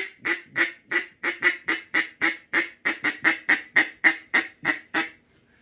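Acrylic Big Bore mallard duck call blown in a fast, steady run of about twenty short quacks, roughly four a second, that stops half a second before the end. It is a comeback call, meant to turn mallards that are flying away back toward the caller.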